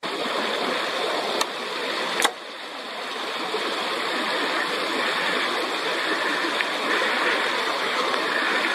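Steady rushing noise, with a sharp click about a second and a half in and a louder one a second later.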